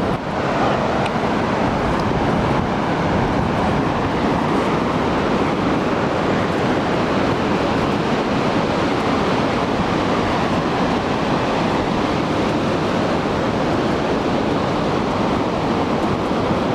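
Steady rushing of ocean surf mixed with wind on the microphone, loud and unbroken, with no distinct hoofbeats or calls standing out.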